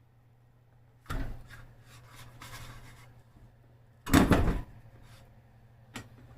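Objects being handled: a knock about a second in followed by some rubbing, a louder half-second scrape about four seconds in, and a short click near the end.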